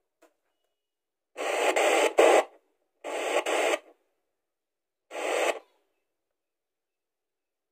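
FM radio static hissing from a portable multiband radio as its tuning knob is turned, in three bursts: a longer one about a second and a half in, a second about three seconds in, and a short one near the five-second mark, silent between.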